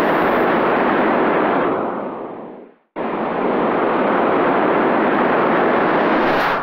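Logo-sting sound effect: a loud rushing, whoosh-like noise with no tune. It fades out about two and a half seconds in and cuts back in abruptly about a second later.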